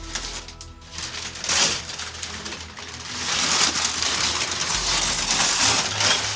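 Wrapping paper being torn and crumpled off a large gift box. A few short rips come in the first two seconds, then the tearing turns continuous and louder from about three seconds in.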